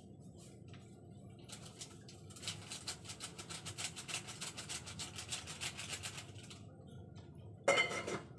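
Rapid rustling and scraping, several strokes a second for a few seconds, as powdered sinigang mix is added from its sachet to the pot of soup, then a brief louder clink near the end.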